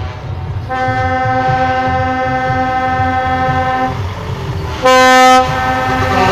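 Truck air horn sounding a steady blast of about three seconds, then a shorter, louder blast about five seconds in, over the low rumble of diesel truck engines passing by.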